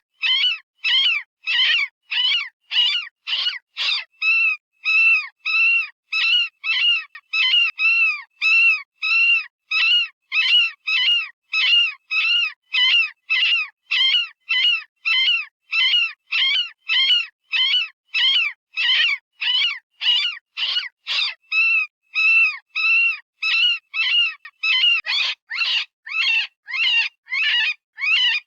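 Synthesized rabbit distress call: a rapid, unbroken string of short, high-pitched screams, about two a second, each rising and falling in pitch, with brief silences between them. It imitates the scream a frightened or injured rabbit gives, the sound hunters use to call in predators.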